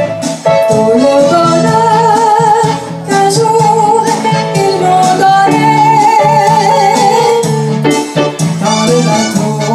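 Live music from an electronic arranger keyboard: an accompaniment with a backing rhythm under a melody line with vibrato.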